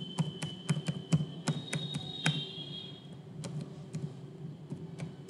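Computer keyboard being typed on: quick, irregular keystroke clicks for about the first two seconds, then a few scattered keystrokes after a short pause.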